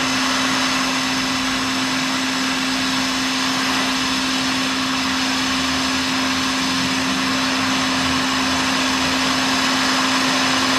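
Hot air rework station's blower running steadily: an even hiss with a constant low hum.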